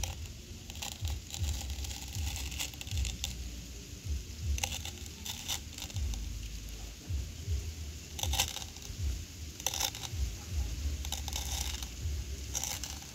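Pink apple snail egg clutches being crushed under a thin plastic sheet, giving short crackling crunches at irregular intervals, mixed with the plastic crinkling.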